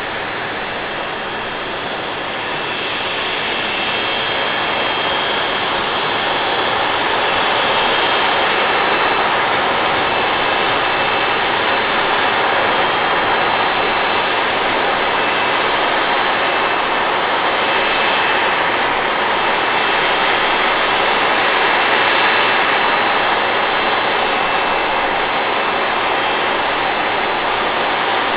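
Korean Air Airbus A321neo's twin jet engines at takeoff thrust through the takeoff roll and climb-out. A loud, steady jet rush carries high whining fan tones and grows louder over the first few seconds.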